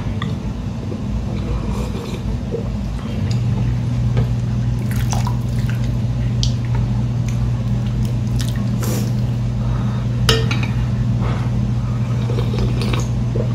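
Broth being sipped from a small ceramic bowl and ladled into it from a large bowl of ramen, with pouring, dripping and light clinks of the metal ladle. A steady low hum comes in about three seconds in.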